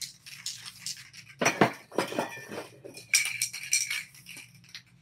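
Aerosol spray-paint can being handled and shaken, its mixing ball and metal body giving sharp clinks and rattles, with a short hiss of paint spraying about three seconds in.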